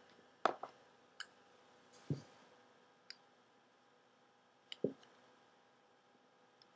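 Spectrum Zippo lighter being handled: a few scattered sharp metallic clicks, with two duller knocks, about two seconds and five seconds in.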